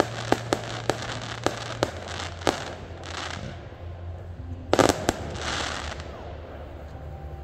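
Aerial fireworks bursting: a rapid run of sharp bangs over the first two and a half seconds, then a loud tight cluster of bangs just before five seconds in, each run trailed by a crackling hiss.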